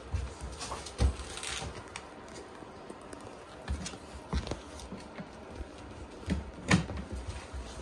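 Shiba Inu puppies scrabbling and tussling on a wooden floor: irregular paw and claw taps and soft thumps as they tug at a large plush toy. The loudest knocks come about a second in and again near the end.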